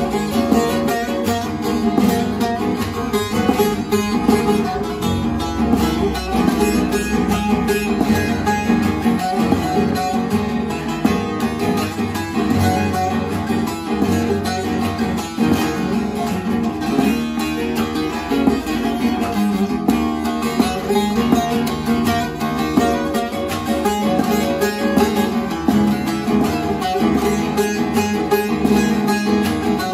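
Bağlama (Turkish long-necked saz) with a mulberry bowl and spruce soundboard, played in a continuous stream of fast plucked notes.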